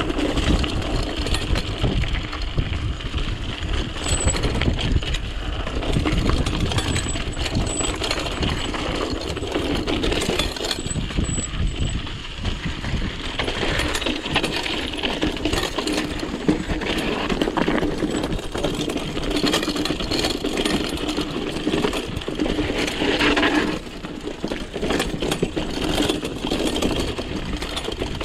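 Mountain bike ridden fast down a rough dirt trail, heard up close: constant rattling and clanking of chain and frame over bumps, tyre noise on the ground, and wind rumbling on the microphone.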